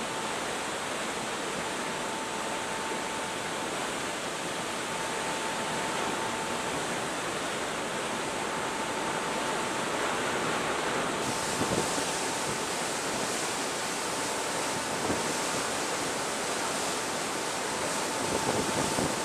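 Steady rushing and churning of a ship's foaming wake as an aircraft carrier turns at high speed, with wind buffeting the microphone in a few short gusts. A faint steady high tone runs under it.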